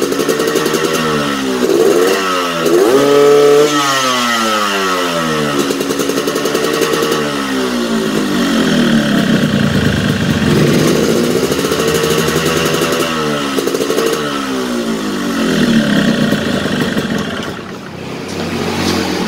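Yamaha RX-King's two-stroke single-cylinder engine running and revved up and down several times, settling back toward idle near the end. It sounds weak and wet at low to mid revs, which the mechanic likens to an engine running too rich, sluggish down low and wanting to be revved higher.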